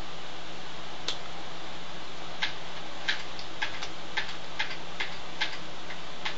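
Hands and fingers tapping against each other while signing in sign language: about ten light, irregularly spaced clicks over a steady low hum and hiss.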